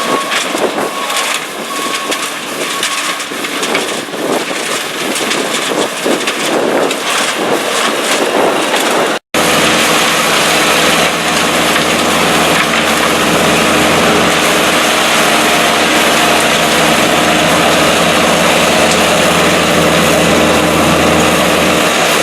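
Revolver RT508 trommel screener running: a dense rattling clatter of many small knocks. After an abrupt cut about nine seconds in, a steady machine hum with a low engine drone.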